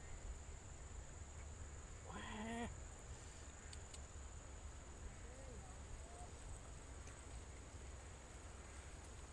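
A goat bleating once, faintly in the background, about two seconds in: a short wavering call.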